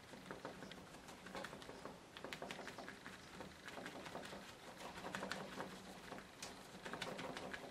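Faint, irregular soft taps and pats of a sponge dabbing acrylic paint onto a painting, several a second, over a low steady hum.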